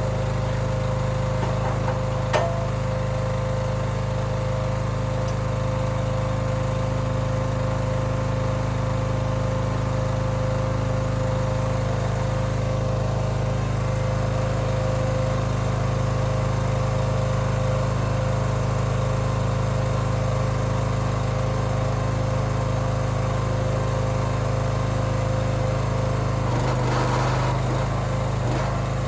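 Small gasoline engine running at a steady speed, with a brief change in its note near the end.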